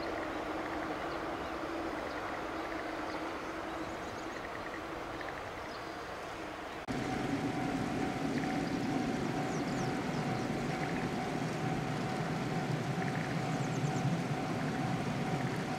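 Steady outdoor background noise of open fields, with a faint steady hum and scattered faint high chirps. About seven seconds in it jumps louder, with more low rumble.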